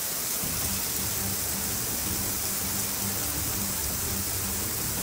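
Heavy rain pouring down in a dense, steady hiss onto a flooded street.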